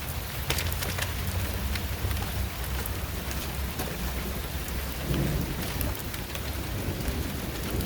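Steady rain falling with a low rumble of thunder, and a few sharp taps near the start.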